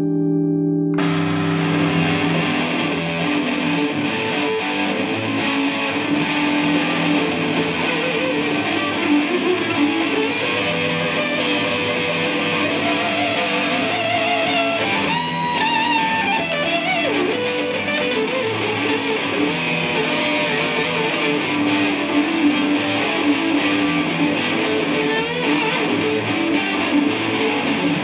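Electric guitar played through a Dophix Nettuno Fuzz pedal: a held fuzzy chord, then dense distorted riffs and chords from about a second in, with wavering, vibrato-laden bent notes around the middle.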